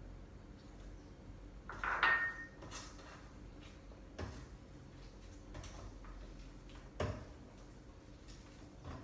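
Dishes and kitchen utensils handled at a counter: a loud clatter with a short ringing clink about two seconds in, then single knocks about four and seven seconds in, over a low steady hum.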